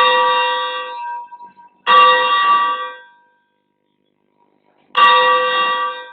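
Church bell ringing practice: a bell struck loudly three times, at the start, about two seconds in and about five seconds in, each stroke ringing on and dying away within about a second.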